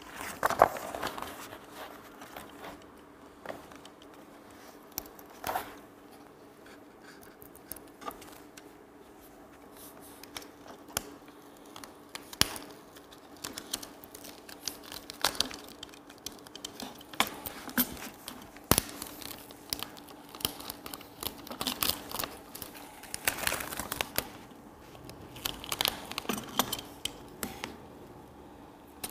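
Self-adhesive banner vinyl being weeded by hand: the waste film is peeled off its backing paper in irregular crackling, tearing pulls, with scattered sharp ticks and rustles of the sheet. The pulls come thickest in a cluster a little over two-thirds of the way through.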